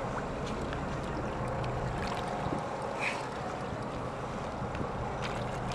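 A motorboat's engine running steadily under wind and water noise, with a few faint clicks.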